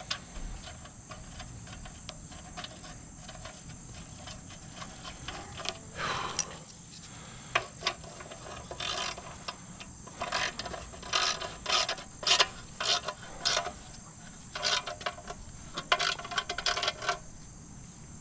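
Hand tools and metal parts clicking and clinking in short bursts, starting about six seconds in, as the Walker mower's blower fan assembly is bolted back together with a carriage bolt.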